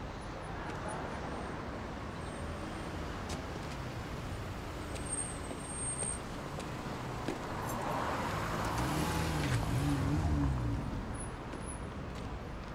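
Street traffic: a steady hum of passing cars, with one car growing louder about eight seconds in, its engine note rising and falling before it fades.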